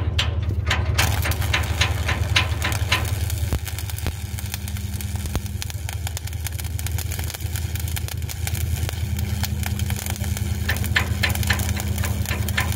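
Stick (shielded metal arc) welding arc struck about a second in, then crackling and hissing steadily as an overhead 4G bead is run on a steel boat hull. Underneath is a steady low machine hum.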